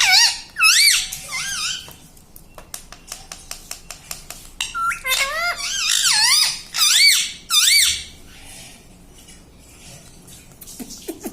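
Pet parrot giving warbling, wavering squeaky calls in two bouts, one at the start and a longer one from about five to eight seconds in, with light clicking in between. It quietens near the end.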